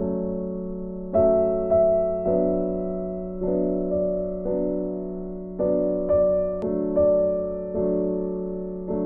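Background keyboard music: slow, gentle notes struck about once a second, each left to ring and fade, over a steady held low note.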